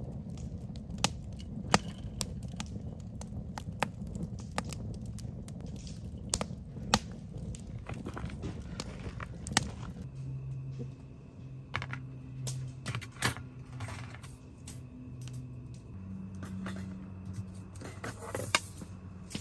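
Wood fire crackling, with sharp pops and snaps at irregular moments throughout. From about halfway a low steady hum comes in underneath.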